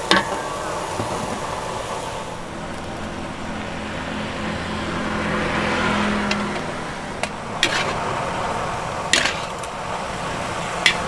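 Street ambience with a motor vehicle passing: a low engine hum swells through the first half and fades out. A few sharp clinks follow later on.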